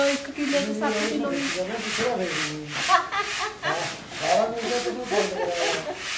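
Wheat grain being sifted in a large wooden-framed sieve swung back and forth by two men: a rhythmic rasping hiss of grain sliding in the frame, about four strokes a second. People are talking underneath.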